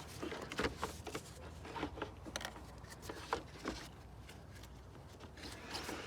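Plastic trim pieces being slid and pressed back into place by hand: scattered small clicks and knocks with rubbing in between, sparser near the end.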